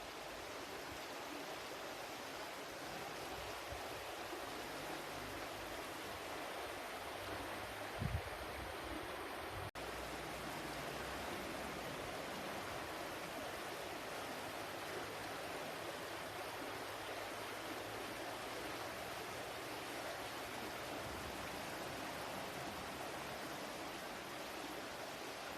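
Flowing water rushing steadily. A short low thump comes about eight seconds in, and the sound drops out for an instant just under two seconds later.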